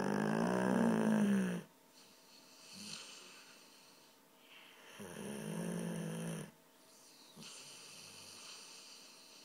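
Sleeping dog snoring loudly: two long snores about five seconds apart, with fainter breathing between them.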